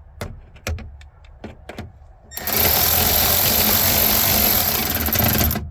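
A few light clicks and knocks of handling, then a power drill runs steadily for about three seconds driving a screw into the trim, and stops just before the end.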